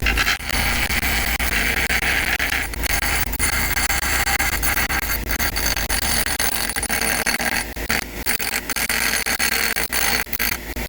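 Power grinder cutting into a Brinks 662 padlock, a continuous gritty grinding of abrasive on metal with a few brief breaks as contact is lost.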